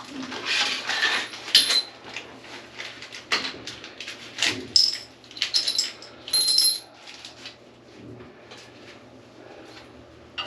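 Irregular clicks and clatter of hard objects being handled, with a few short high squeaks in the middle; quieter over the last few seconds.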